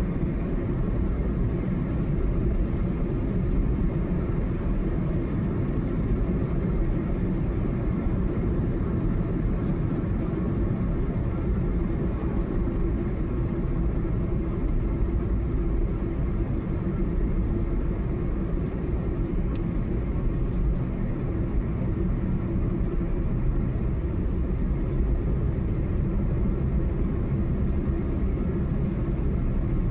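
Steady road and engine noise of a car being driven on a highway, with no distinct events.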